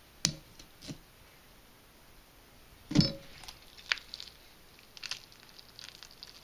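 Knife and fork clicking and knocking against a plastic cutting board while pufferfish are cut and skinned, with a sharp, loud knock about three seconds in and a few lighter clicks around it.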